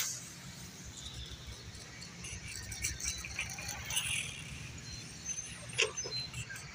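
Outdoor ambience: wind rumbling on a phone microphone, with scattered faint ticks and clicks.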